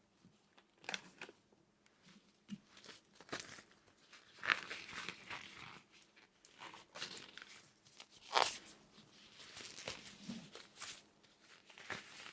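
Irregular, quiet crunching and crinkling: a scattered series of short crackles, with two louder crunches about four and a half and eight and a half seconds in.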